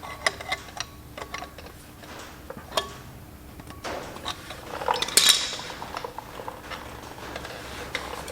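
Light metallic clinks and taps of hand tools against the steel flywheel bolts and their lock tabs, with one sharper ringing clink about five seconds in.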